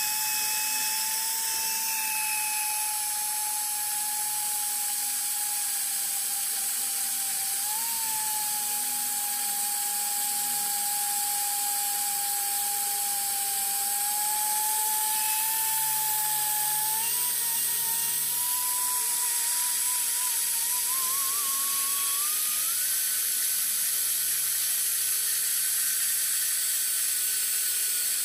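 Hand-held die grinder with a burr bit porting the intake port of a Mazda rotary engine's side housing, running as a steady high whine. The pitch sags slightly as the burr cuts, then climbs in steps over the last third.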